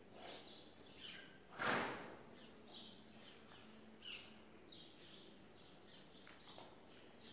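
Small birds chirping faintly and repeatedly. About a second and a half in comes one short, loud rushing noise, the loudest sound.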